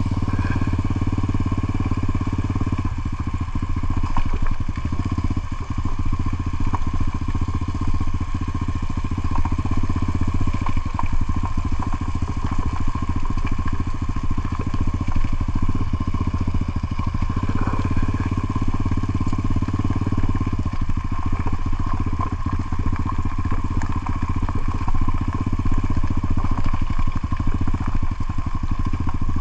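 Motorcycle engine running at a steady speed, with no revving up or down.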